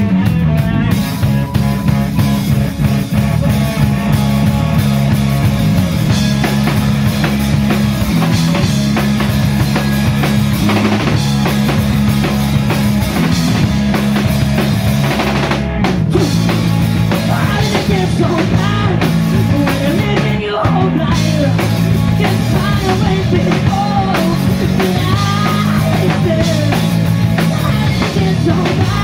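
Live rock band playing a song, with a drum kit keeping a steady beat over a stepping bass line.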